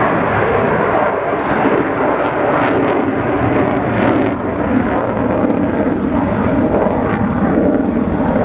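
F-16 fighter jet engine noise, a loud, continuous roar as the jet flies its display.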